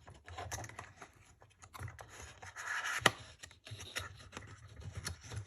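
Cardboard perfume packaging scraping and rustling, with small clicks, as the bottle is drawn out of its box. There is one sharp tap about three seconds in.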